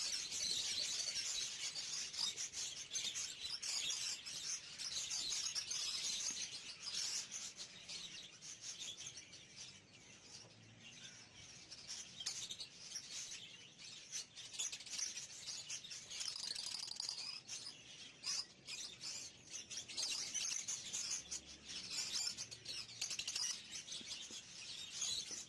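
A flock of budgerigars chattering: many overlapping chirps and warbles at once, unbroken throughout.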